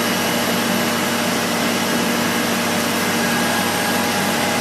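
A steady machine drone: an even rushing noise over a low hum, holding at one level without change.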